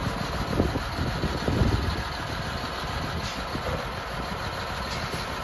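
Caterpillar C7 turbo diesel inline-six of a 2005 Blue Bird school bus idling steadily.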